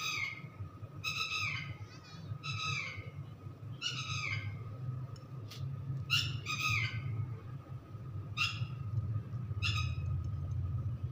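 A bird calling over and over in short calls that fall in pitch, coming irregularly every one to two seconds, over a steady low hum.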